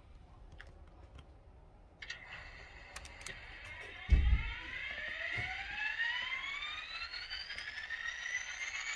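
ESU sound decoder in an N-scale Atlas GP40-2W model diesel locomotive playing its engine start-up sound. It comes in about two seconds in, gives a low thump about four seconds in, then a whine rises steadily in pitch as the simulated engine spools up.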